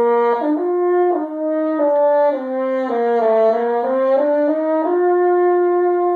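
French horn playing a short melodic phrase of about a dozen sustained notes stepping up and down, ending on a long held note.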